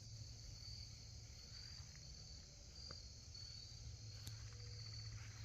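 Faint steady chirring of insects such as crickets, with short chirps repeating a little more than once a second over a low background rumble. There is a faint click about four seconds in.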